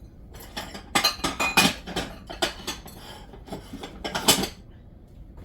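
Dishes and cutlery clattering and clinking as they are rummaged through in a kitchen sink: a busy run of knocks and clinks, loudest about a second in and again near the end.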